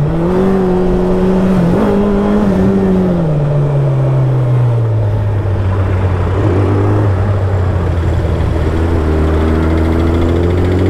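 Suzuki Hayabusa's inline-four engine running under the rider in city traffic. The engine note falls about three seconds in as the throttle is rolled off, holds low, then starts to climb again near the end, over a steady rush of wind and road noise.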